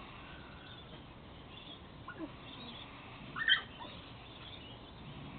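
Staffordshire bull terrier puppies giving a few short, high-pitched yelps while play-fighting, the loudest about three and a half seconds in.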